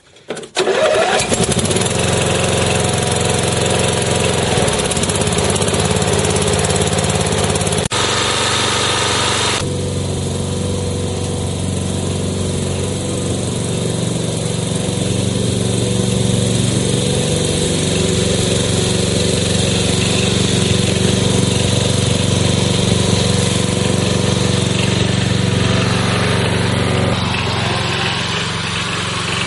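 MTD 12 hp ride-on lawn tractor engine running steadily, cutting in abruptly about half a second in. About eight seconds in there is a short stretch of added hiss.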